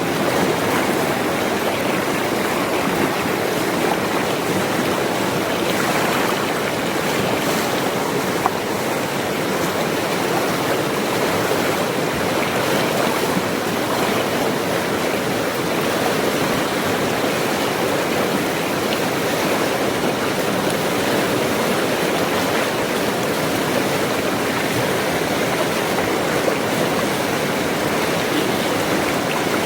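Forest stream running with rainy-season water, a steady rushing of flowing water with no change in level.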